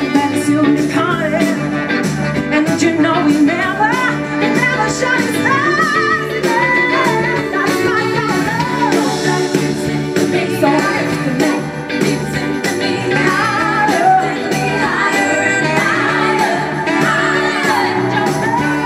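Soul band playing live, a woman singing lead over electric guitar, bass and a steady drum beat.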